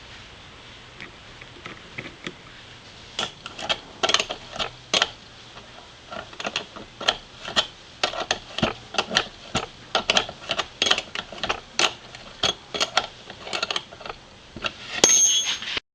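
An irregular run of sharp metallic clicks, a few a second, from hand work with tools on the robot's metal parts and fasteners. Near the end a metal part rings briefly.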